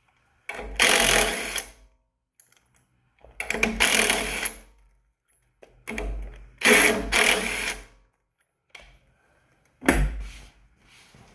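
Cordless power driver with a socket extension spinning out the brass valve plugs on a pressure washer's pump, in four bursts of about one to two seconds each. The plugs are being removed to get at the pump's valves.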